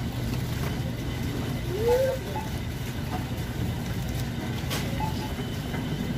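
Steady low rumble of grocery-store background noise around open freezer cases, with a short rising pitched sound about two seconds in.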